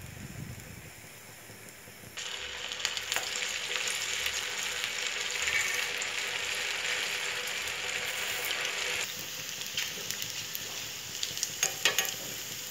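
Sabudana vadas deep-frying in hot oil in a kadai, the oil sizzling steadily. The sizzle turns suddenly much louder about two seconds in and eases off again later. Near the end come a few clicks of the steel slotted spoon against the kadai.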